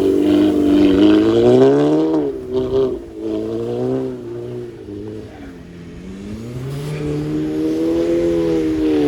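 Straight-piped Audi S3 8P's turbocharged 2.0 litre four-cylinder revving up, then falling away on lift-off with a few crackles and pops from the remapped exhaust, then building revs again and holding.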